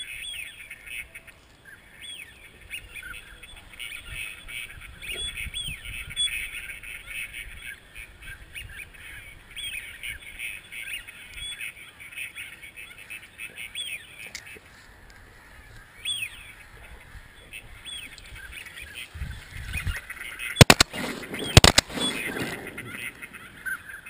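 A flock of ducks calling, with many short calls overlapping, thinning out partway through. Near the end come two sharp, loud cracks about a second apart.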